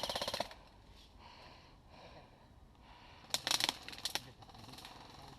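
An airsoft gun firing full-auto in a rapid, even rattle that stops about half a second in. After a quiet stretch, a short cluster of sharp clicks comes a little past halfway, with one more click soon after.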